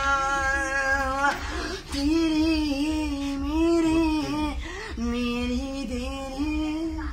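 A young man singing a Hindi song unaccompanied, in long held notes with short breaks between phrases.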